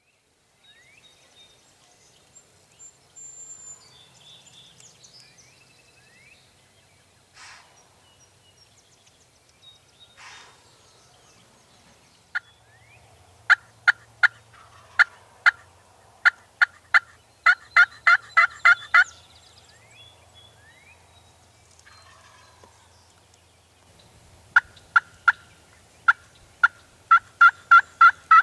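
Turkey yelps: two runs of short, sharp, evenly repeated calls, the notes coming closer together toward the end of each run. Faint songbird chirps come before them.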